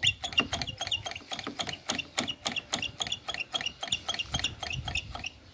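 ATV front brake lever being pumped quickly at the open master cylinder while the brakes are bled, giving a fast even run of clicks, several a second, each with a short high chirp.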